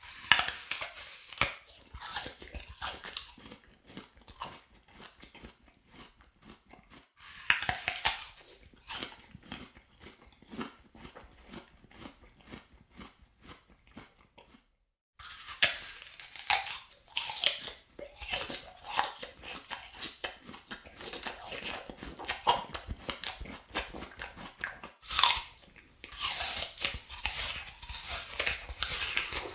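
A crisp apple being bitten and chewed close up: loud crunching bites near the start, about a third of the way in, just past halfway and near the end, each followed by rhythmic chewing crunches. The sound briefly cuts out just before halfway.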